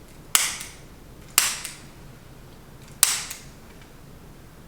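Three sharp snaps of a spring-loaded chiropractic adjusting instrument (an activator) firing against the patient's body, each with a brief fading tail, spaced about one to one and a half seconds apart.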